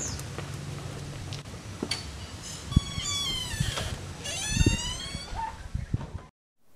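Two drawn-out animal calls with several pitch lines, each about a second long and falling at the end, among a few short high chirps and dull thumps. The sound cuts off suddenly just before the end.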